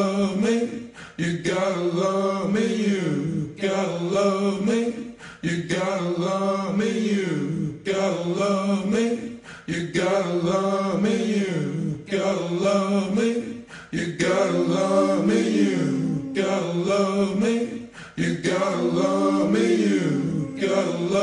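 Background song of mostly unaccompanied voices singing a short chanted phrase, repeated about every two seconds.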